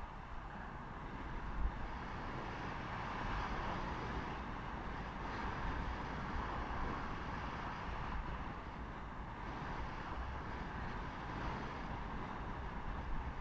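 Steady hiss and scrape of sliding over groomed, packed snow, with a low rumble of wind buffeting the microphone that swells and eases a little.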